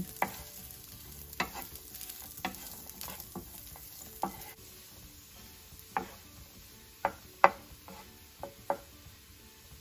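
A wooden spoon stirring diced Chinese sausage and Chinese bacon in a nonstick skillet, knocking and scraping against the pan about once a second, over a faint sizzle as their fat renders.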